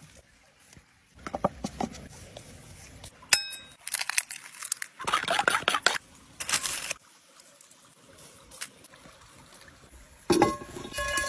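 Close-up cooking sounds in short scenes: a sharp clink that rings briefly, then a run of quick scraping strokes of a wooden stick whisking egg in a wooden bowl, and near the end a louder clatter with ringing from a cast-iron pan set over coals.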